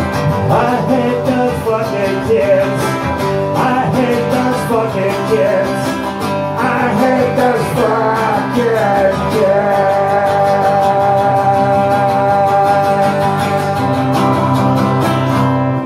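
Live acoustic guitar strummed steadily with a man singing along; about halfway through, a single long note is held for several seconds.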